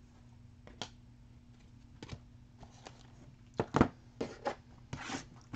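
Trading cards and card boxes being handled on a tabletop over a faint low hum: a few light taps early on, then a cluster of sharper clicks and knocks from about three and a half to five seconds in.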